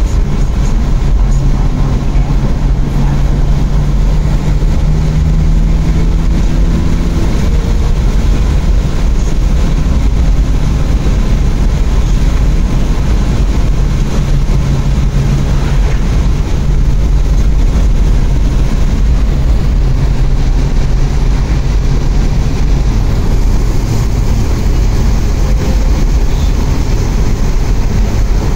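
Porsche 911 flat-six engine running under way with steady road and tyre noise, heard from inside the cabin. The engine pitch climbs gently over the first several seconds, then holds steady.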